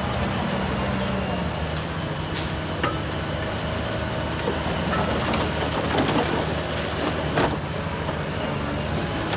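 Heavy diesel construction machinery running steadily, with a short hiss about two and a half seconds in and a few sharp metallic knocks in the second half.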